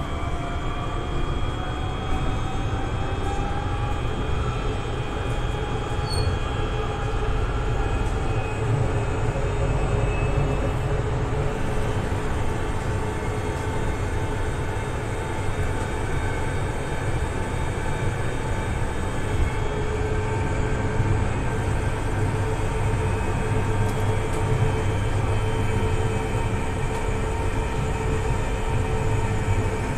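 Electric tram running along its track, heard from inside at the front: a steady low rumble of wheels and running gear, with the electric traction motors' faint whine gliding slowly up and down in pitch as the speed changes.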